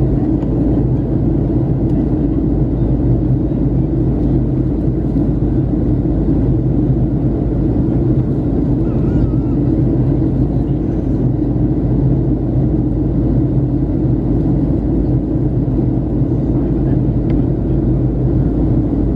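Steady cabin noise of a Boeing 737-800 in flight, heard from a seat behind the wing: its CFM56 turbofan engines and the airflow over the fuselage make a constant low drone with a steady hum.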